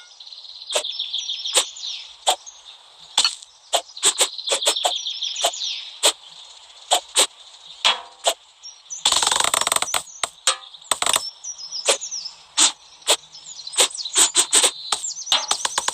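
A knife cutting and chopping, with sharp irregular taps of the blade against a cutting board and scraping slices between them. A longer rasping cut comes about nine seconds in.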